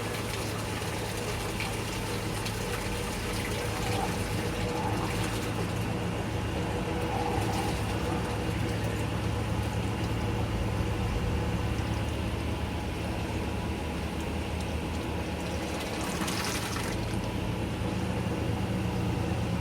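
GE Filter-Flo washing machine running: a steady motor hum with water rushing and being pumped through the machine.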